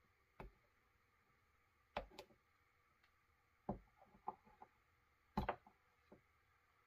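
Small metal parts of a chainsaw carburetor being handled and set down on a bench: about ten light, scattered clicks and taps over near silence, the loudest a little over five seconds in.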